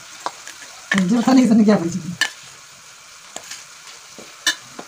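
Steel spoon stirring raw chicken pieces into curd on a stainless steel plate: wet mixing with a few light clinks of the spoon against the metal. A short voice sounds about a second in.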